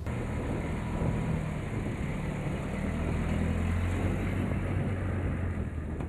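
Engine of a tow vehicle running steadily with a low, even hum as it pulls a boat on a trailer up onto land.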